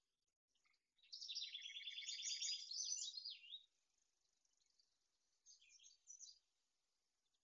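A small songbird singing: a fast, high trill of repeated notes lasting about two and a half seconds, ending in a few quick sweeping notes, with a couple of short high notes a little later.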